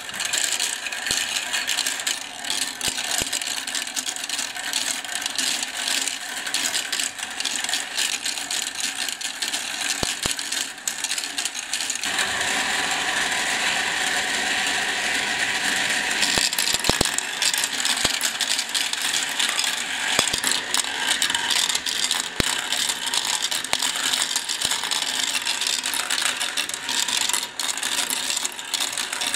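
Many plastic balls rolling and clattering along plastic marble-run tracks in a dense, continuous patter of small clicks. About twelve seconds in it turns into a steadier rolling whir for a few seconds as the balls circle a funnel bowl.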